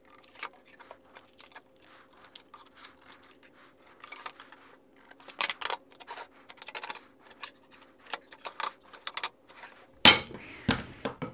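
Carpenter's pencil scratching lines across pine boards and a metal speed square tapping and sliding on the wood, in many short strokes over a faint steady hum. A couple of louder knocks of wood near the end.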